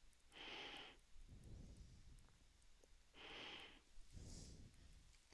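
Near silence with faint breathing close to the microphone: two slow in-and-out breath cycles.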